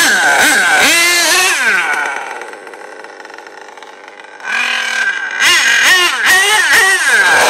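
HPI Savage nitro RC monster truck's Novarossi .28 big-block engine revving hard, its pitch climbing and falling with each burst of throttle. It runs untuned on its first tank. It drops quieter for a couple of seconds in the middle, then comes back loud with several quick rising revs.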